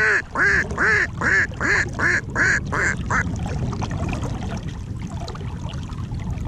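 Duck quacking in a quick series of about eight loud quacks, stopping about three seconds in.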